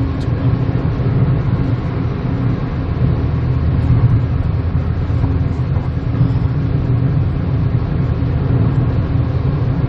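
Kia Morning hatchback heard from inside its cabin while cruising on a motorway: a steady low rumble of engine and tyre noise.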